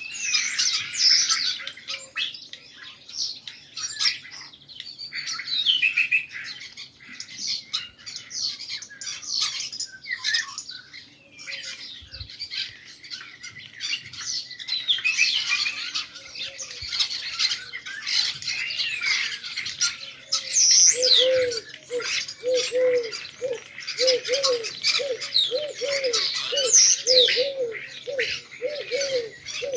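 Many small birds chirping and twittering densely. About two-thirds of the way through, a pigeon starts cooing in a steady repeated low note, about one and a half a second.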